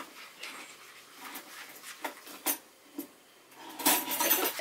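Spoon stirring and scraping frosting in a paper bowl: soft, irregular scrapes and clicks, with a louder rustling stretch near the end.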